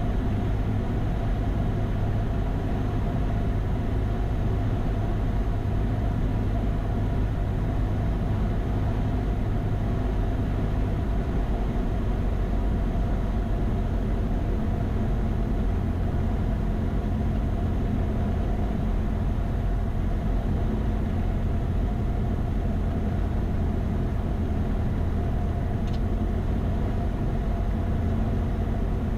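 Cessna 172's engine and propeller droning steadily, heard from inside the cabin on final approach for landing. The low drone changes pitch slightly about eleven seconds in.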